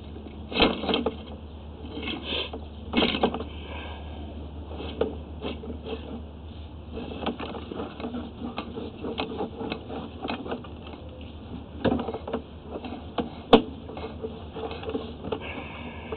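Sewer inspection camera's push cable being fed down a drain line: irregular clicking and rattling, with a few louder clacks and one sharp click near the end, over a steady low hum.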